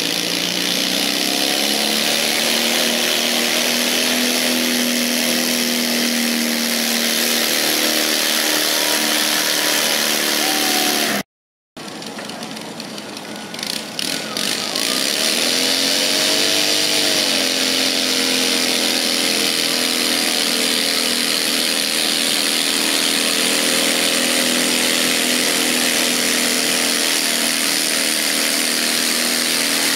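Garden tractor engines running hard while pulling a weight-transfer sled. The sound drops out briefly a little before the middle; then another tractor's engine revs up and holds a steady pitch under load.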